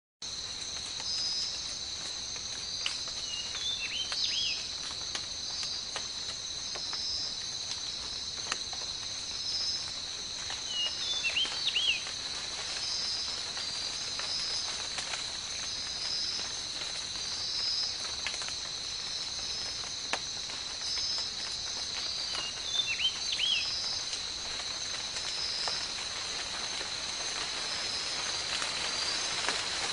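Forest insects droning steadily at a high pitch, with a pulsing chirp about once a second over the top. Short chirping bird calls come in three brief bursts, about four seconds in, around eleven seconds, and about twenty-three seconds in.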